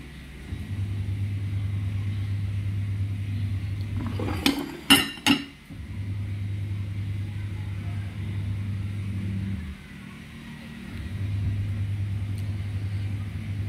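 A low, steady hum that cuts out twice, with a short cluster of sharp clinks about four and a half to five and a half seconds in.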